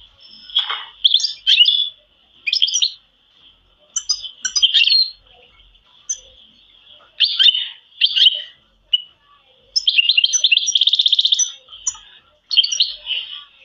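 Domestic canaries singing and chirping in a string of short high-pitched phrases, with a fast rattling trill lasting about two seconds near the end.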